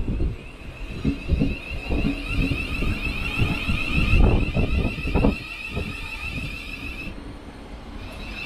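Steady, warbling high-pitched electronic tone from around a standing Thameslink Class 700 electric train at the platform. It cuts out briefly about seven seconds in, then resumes. Gusts of wind rumble on the microphone throughout.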